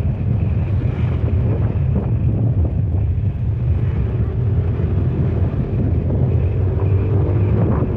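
Steady wind rumble buffeting the microphone on a moving motorbike, with the bike's engine running beneath it.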